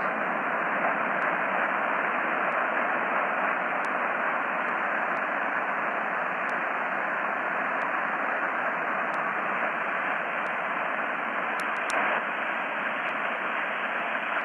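Steady hiss of radio static from a receiver during dead air, with no programme audio, only an even band of noise with dull highs.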